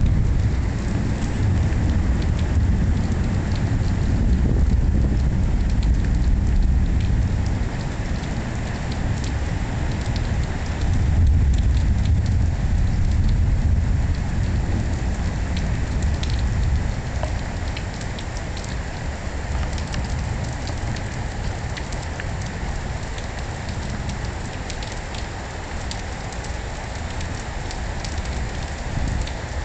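Heavy rain pattering steadily, with low rolls of thunder that swell twice and then die down through the second half.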